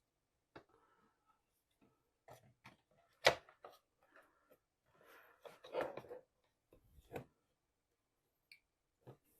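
Handling noise from working on a solar street light: scattered small clicks and light knocks of its parts being moved and fitted. There is one sharper click about three seconds in and a short spell of rustling around the sixth second.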